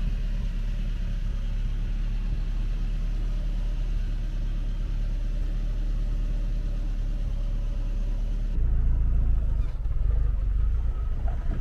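A car running and driving, a steady low engine and road rumble that gets heavier in the lowest range about two-thirds of the way through.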